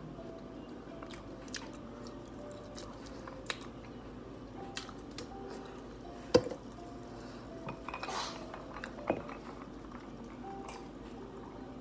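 A person eating boneless chicken wings and fries close to the microphone: chewing, with scattered sharp clicks of cutlery and dishes, the loudest about six seconds in. Soft background music plays underneath.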